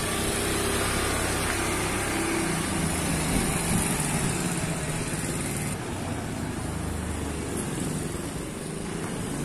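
Small motor scooter engines running steadily as scooters ride along a paved lane.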